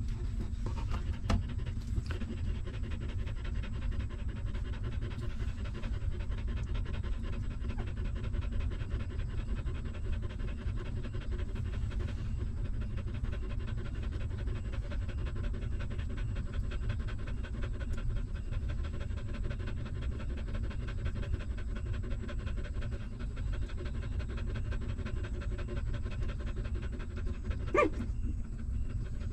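Mother dog panting rapidly and steadily while her newborn puppies nurse. One short rising squeak comes near the end.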